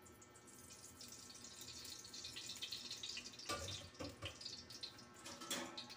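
Cooking oil heating in an aluminium wok, a faint, irregular hiss and light crackle, with two soft knocks a little past halfway and near the end.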